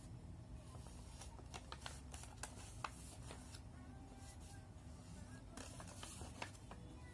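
Origami paper being folded and creased by hand: quiet, scattered crisp crackles and clicks of the paper.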